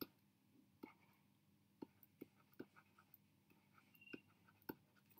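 Faint, scattered taps of a stylus on a drawing tablet during handwriting, about seven light ticks at irregular intervals over near silence.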